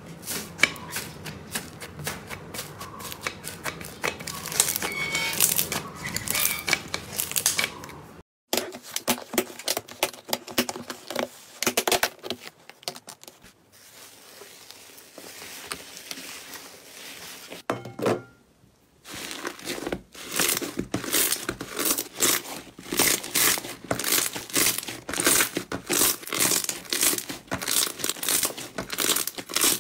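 Slime being squeezed, poked and stretched by hand, making dense crackling and popping clicks. It comes as several clips in a row, with abrupt cuts about 8 seconds in and again just before the 19-second mark.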